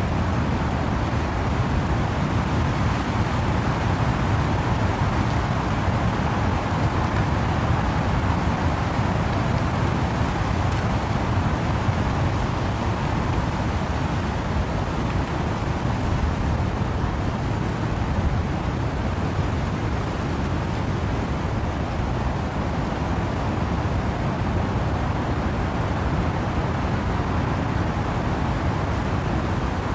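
Steady wind and rain noise with trees rustling, a dense even wash heaviest in the low rumble, without separate drops or gusts standing out.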